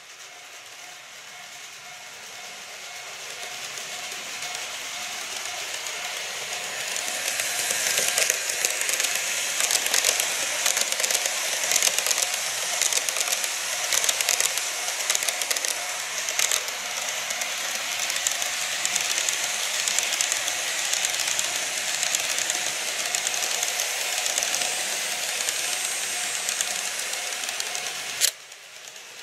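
KATO model trains running along the track: a hissing, clicking rattle of small wheels on the rails that builds over the first several seconds and then holds steady and loud. It cuts off abruptly just before the end.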